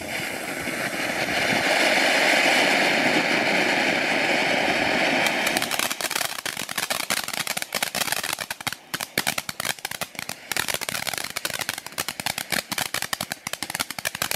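Small F1-category ground fountain firework burning with a steady spraying hiss. About five seconds in it changes to a dense, irregular crackling of crackling stars that continues until it dies down.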